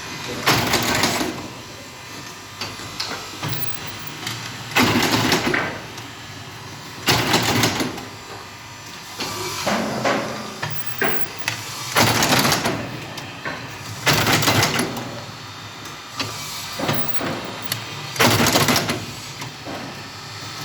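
Corali M50s crate-making machine working through its cycles: loud bursts of mechanical noise, each under a second, come every two to five seconds, with lighter clatter between them.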